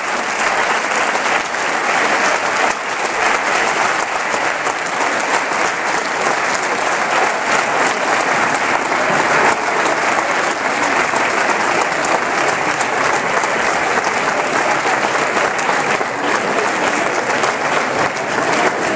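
Large theatre audience applauding, dense sustained clapping without a break.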